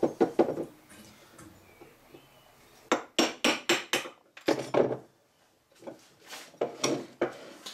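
Wood chisel chopping into an ash axe handle: sharp wooden knocks, a few at the start, then quicker runs of knocks from about three seconds in, broken by short pauses.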